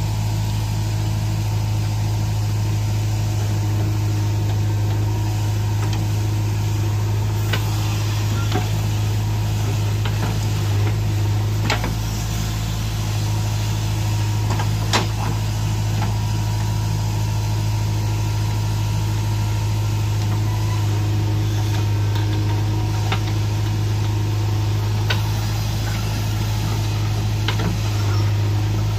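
Diesel engine of a JCB 3DX backhoe loader running steadily under load while it digs and loads soil, with a few sharp metallic knocks from the working machine.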